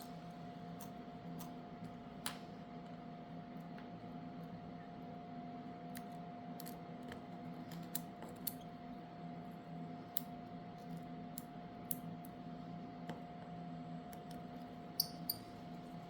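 Small repair tools and phone parts giving scattered light clicks and taps, one every second or two with a quick pair near the end, over a steady faint electrical hum.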